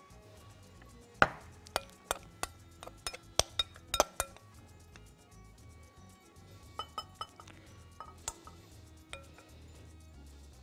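A spoon clinking and scraping against a glass bowl as tomato-and-red-onion salad is scooped out into a serving bowl: a scattering of sharp clinks and taps, the loudest a little over a second in and about four seconds in. Soft background music plays underneath.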